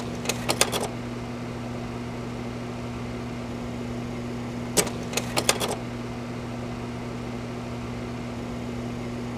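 Old slide projector running, its cooling fan motor giving a steady low hum. Twice, about five seconds apart, the slide-change mechanism clicks and clacks in a quick run of several sharp knocks.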